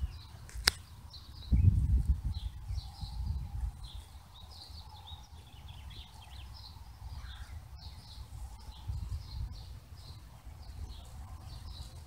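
Birds chirping again and again in the background over a low wind rumble on the microphone, with a sharp click under a second in and a louder gust at about two seconds.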